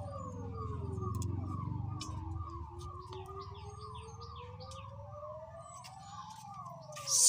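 A siren wailing, its pitch slowly falling then rising over several seconds, with a faster tone falling again and again above it. Birds chirp over it, and there is a brief loud rustle near the end.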